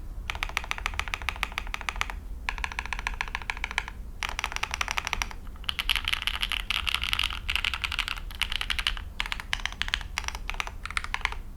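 Fast typing on a QK Alice Duo split mechanical keyboard: dense runs of rapid key clicks, broken by brief pauses about two, four, five and a half and nine seconds in.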